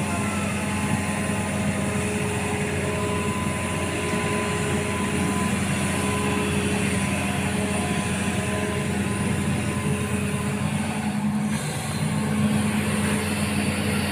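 Diesel engine of a Hitachi amphibious excavator running steadily, with a brief dip in its note near the end.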